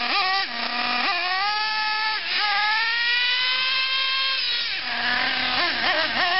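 LRP .28 nitro engine of an RC buggy revving hard. There is a short full-throttle pull about a second in, then a longer high-pitched run that slowly falls in pitch as the buggy speeds away. Near the end it drops back to a buzzing idle with a few quick throttle blips.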